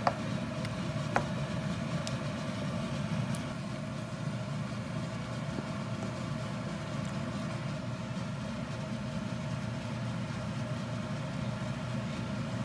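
Steady low hum over a cream sauce cooking in a frying pan on a gas stove, with a wooden spoon knocking against the pan twice near the start.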